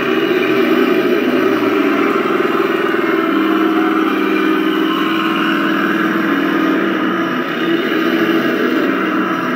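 Model RC Leopard 2A4 tank running, its simulated engine sound steady and even, with a step up in level right at the start as the tank pivots in place.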